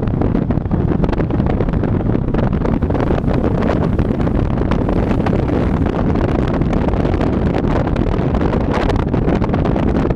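Wind buffeting the microphone of a camera mounted on the outside of a moving car, a steady roar with frequent crackles, over the car's road noise.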